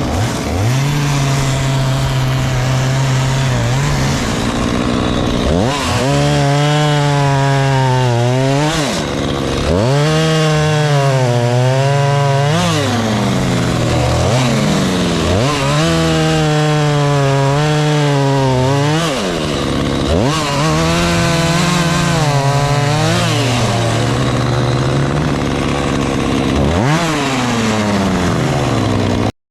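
Chainsaw revving and cutting wood, again and again: each time it revs up to a high pitch and bogs down in the cut, about five or six cuts in a row. It cuts off suddenly at the very end.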